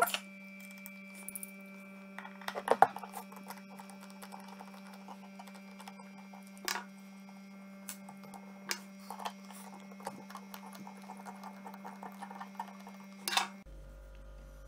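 Small metallic clicks and scrapes of screws being worked out of a shotgun's trigger guard by hand and screwdriver, with a cluster of sharper knocks about three seconds in and another near the end, over a faint steady hum.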